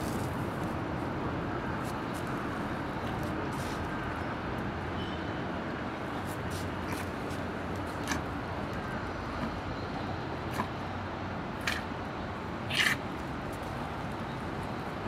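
Steady outdoor background noise with a few short, sharp clicks scattered through the second half, the loudest about three-quarters of the way in.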